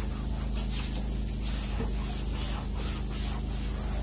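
A steady hiss over a low, even machine hum: detailing equipment running in the background.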